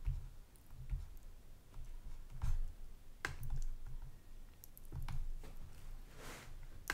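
A handful of quiet, irregularly spaced clicks of a computer mouse, with soft low thumps between them.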